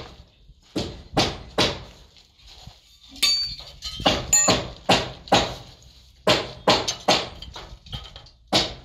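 Hammer blows on wooden concrete formwork: sharp knocks coming irregularly, often two or three in quick succession, with a few ringing metallic clinks about three to four seconds in.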